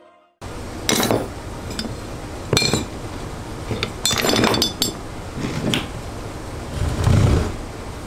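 Metal motor parts and hand tools clinking and knocking on a workbench while an electric motor is taken apart, with a heavier thump about seven seconds in.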